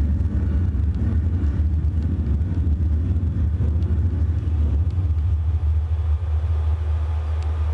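Steady deep rumble with a low hum, the sound of metal ceiling wires picked up by piezo contact microphones and amplified, with a few faint ticks.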